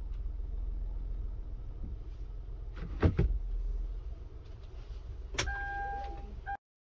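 A car door slamming shut with a double knock about three seconds in, over a low rumble. Near the end comes a click and a steady beep, then a short second beep.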